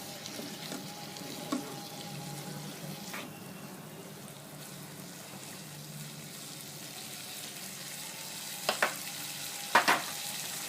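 Spiced boiled potato cubes sizzling steadily in oil in a wok, with a few short sharp knocks, the loudest coming in two quick pairs near the end.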